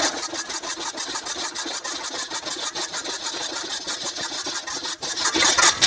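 Spring-driven hose reel being turned by hand to wind up its spring, heard sped up: a steady rapid mechanical clicking, about ten clicks a second.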